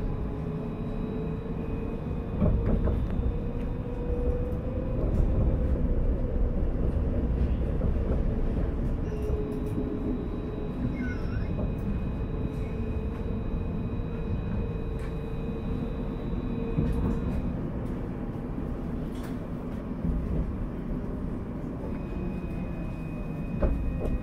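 Alstom Citadis tram of the Paris T3a line running on its rails: a low, steady rumble of wheels on track with a motor whine that rises in pitch over the first few seconds, then holds steady and fades out in the second half. A few sharp clicks come through, the clearest about two seconds in and near the end.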